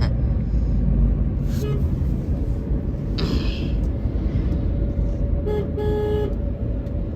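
Road traffic heard from a moving vehicle: a steady low rumble of engine and tyres, with a vehicle horn tooting a short beep then a longer one about five and a half seconds in.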